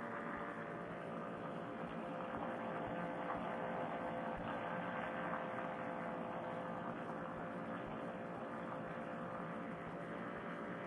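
Paramotor trike engine and propeller droning steadily in cruising flight.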